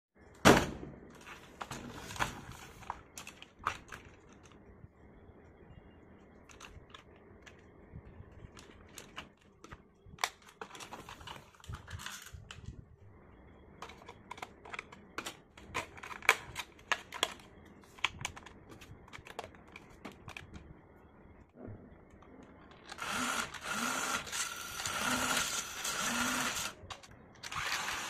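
Plastic clicks and knocks of a toy RC rock crawler and its parts being handled, with a sharp knock at the start. Near the end the toy's small electric drive motor and plastic gearbox whir with a steady whine for about four seconds, break off briefly, then start again.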